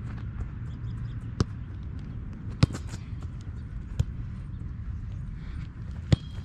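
A football struck four times, as sharp separate thuds, the loudest about two and a half seconds in, over a steady low rumble.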